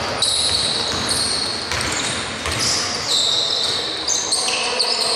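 Basketball bouncing during play, with a run of high-pitched sneaker squeaks that start and stop over it.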